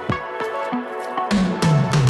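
Background music: pitched electronic notes with sharp percussive hits, a heavier bass line and drums coming in about a second and a half in.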